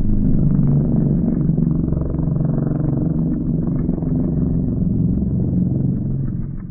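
Sound-designed kaiju monster call: a deep, rough, rumbling growl held for about six seconds, fading out near the end.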